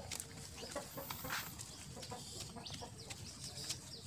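Short clucking animal calls over scattered small clicks and rustles.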